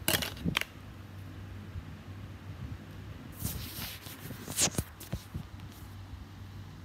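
A pocket calculator being handled close to the microphone: a couple of sharp clicks at the start, a brief rustle about three and a half seconds in, and another sharp click and knock near five seconds, over a steady low hum.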